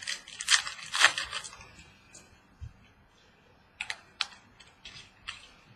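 Trading cards being handled: a flurry of scratchy rustles and sliding, then several separate sharp clicks a few seconds later.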